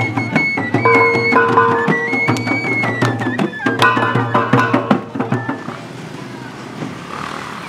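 Traditional procession music from marching hand drums and a flute: a high flute melody over quick, dense drum beats. The music drops away about five and a half seconds in, leaving quieter street noise.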